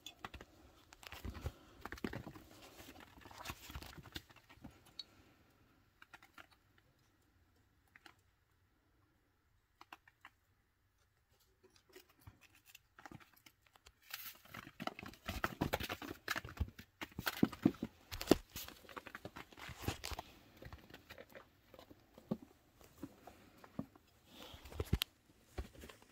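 Baby chinchillas scrabbling and rustling on fabric and in a person's hands: scattered scratches, rustles and light clicks, quiet for a few seconds in the middle, then busier clicking and rustling among their wooden chew toys.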